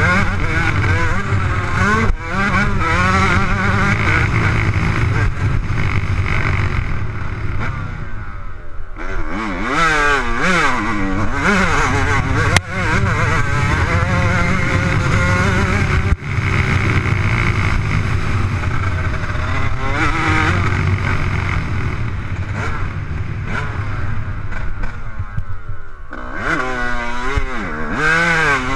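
Dirt bike engine revving hard while being ridden, its pitch climbing and dropping with the throttle and easing off twice, about eight seconds in and near the end. A few sharp knocks cut through.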